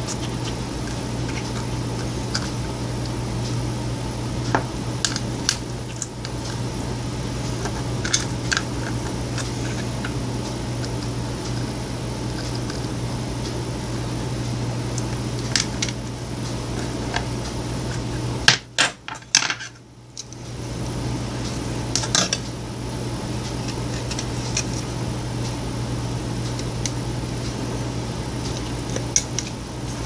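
Sparse small clicks and scrapes of a pointed hand tool poking through tape on a plastic light switch plate, over a steady low hum. A cluster of sharper clicks a little after the middle.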